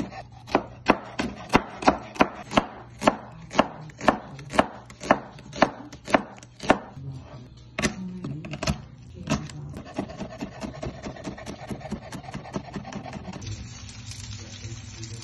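Chef's knife slicing celery on a wooden cutting board, steady knocks about two a second for the first seven seconds. A few heavier, irregular knocks on the board follow while garlic cloves are handled, then lighter ticks, and near the end a faint steady hiss of oil heating in a pan.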